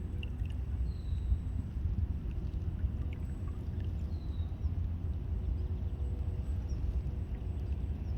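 Steady low wind rumble on the microphone, with a faint steady hum underneath and two brief high chirps, about one second and four seconds in.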